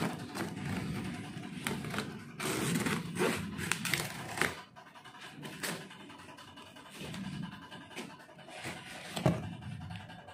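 Plastic-wrapped cardboard carton being cut and torn open: irregular rustling, scraping and tearing of the wrap and cardboard, with sharp clicks. It is loudest about two to four seconds in, with a sharp snap near the end.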